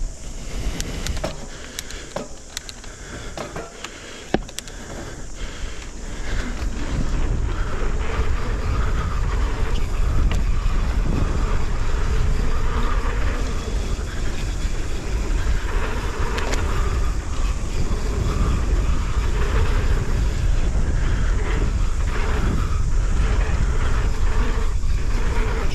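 Mountain bike riding downhill on a dirt forest trail: wind rushing over the action-camera microphone and the tyres rolling over the ground, with a few sharp clicks and knocks from the bike in the first few seconds. About six seconds in, the rush and rumble grow louder and stay steady as the speed builds.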